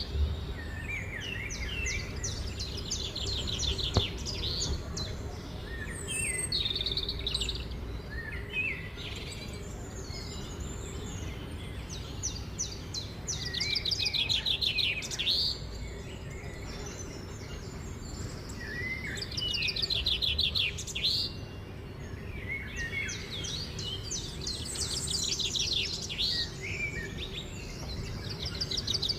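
Small songbird singing: phrases of fast high trills mixed with chirps, repeated every few seconds, over a faint steady low hum. There is one sharp click about four seconds in.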